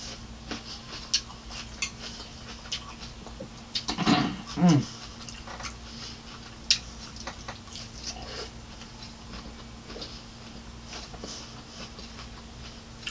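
Salad being eaten with a metal fork from a glass bowl: chewing with sharp clicks and ticks now and then. About four seconds in, two short falling cries are the loudest sounds.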